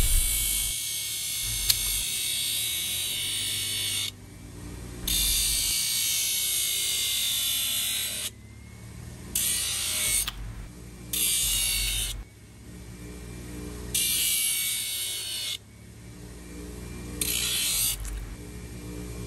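A steel horseshoe ground against a spinning abrasive wheel on a bench grinder. There are about six passes, each a loud, hissing rasp lasting one to three seconds, and between them the motor whirs quietly on its own.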